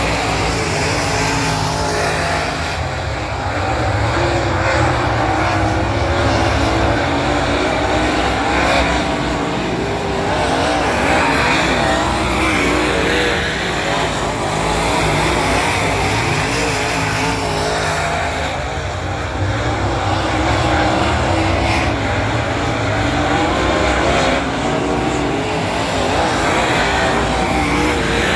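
Dirt Super Late Model race cars' V8 engines running at race pace around a dirt oval, several engines overlapping, their pitch rising and falling as the cars accelerate down the straights and back off into the turns.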